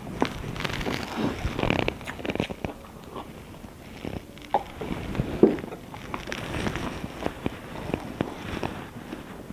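Close-up eating sounds from a man chewing with his mouth, irregular smacks and clicks. Around the middle he swallows water from a glass, and near the end his fingers work through rice on a plate.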